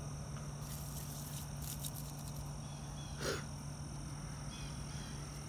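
A kitten gives one short, rising mew about three seconds in, after a brief rustle of play on gravel, over a steady low hum.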